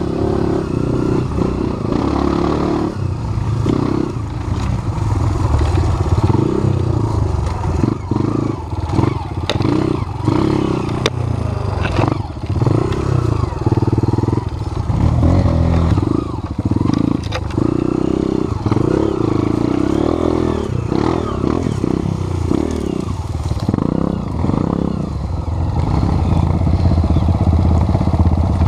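Trail motorcycle engine running, the throttle opening and closing so the engine note keeps rising and falling, with scattered rattles and knocks.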